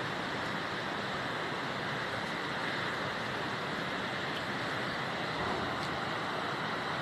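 Steady rushing background noise with no speech and no distinct events.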